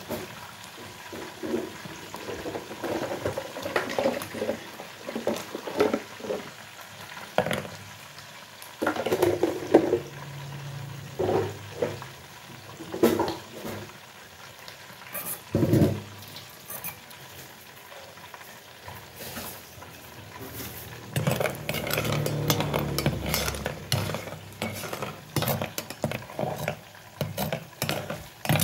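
Metal ladle stirring in a pot of hot cooking oil, with irregular scrapes and knocks against the pot and stretches of oil sizzling.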